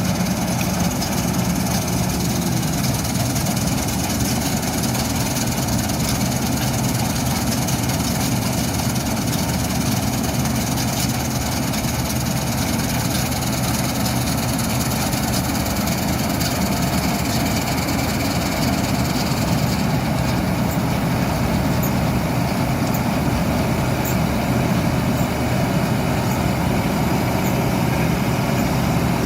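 Diesel engine of a 1979 New Holland 8070 combine harvester running steadily at an even, unchanging speed, with a deep hum under a constant mechanical whirr.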